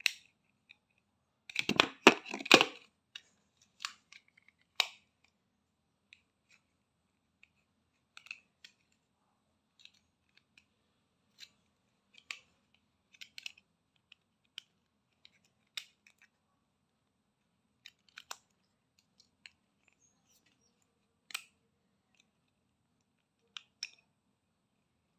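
Plastic clicking and scraping as an earbud charging case's plastic shell is pried apart at its seam with a hair clip. A burst of loud clicks and scrapes comes about two seconds in, then single sharp clicks every second or so.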